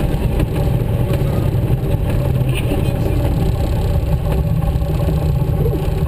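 Small propeller plane's piston engine running steadily at low power, as heard inside the cockpit.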